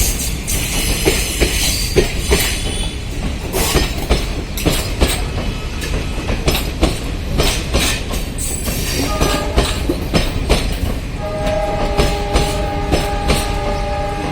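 Diesel-hauled passenger train running past, its wheels clattering in a quick irregular stream of clicks over the rail joints above a steady rumble. About eleven seconds in, a held tone of several notes joins in.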